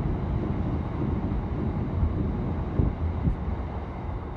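Wind buffeting the microphone over the low rumble of a diesel freight locomotive approaching with a container train.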